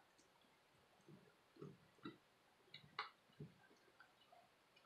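A few faint, scattered clicks and taps from fingers handling a laptop's screen cable and its small connector near the hinge.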